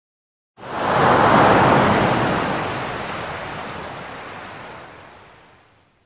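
A single ocean wave crashing onto a beach: it breaks suddenly about half a second in, then washes out and fades away over about five seconds.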